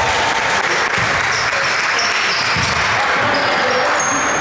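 Basketball bouncing on a gym floor during a game, with short high squeaks over a steady noisy din in the hall.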